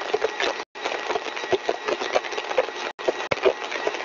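Single-stage axial compressor test rig running at full design speed: a steady noisy rush with irregular crackling clicks, broken twice by brief silent dropouts.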